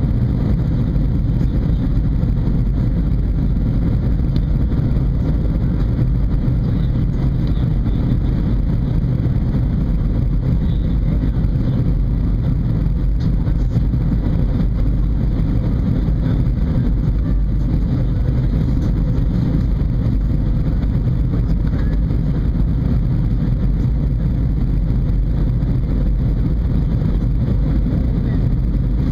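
Steady cabin noise of an Airbus A320 descending: engine and airflow rumble, heavy in the low end, with a faint steady hum above it.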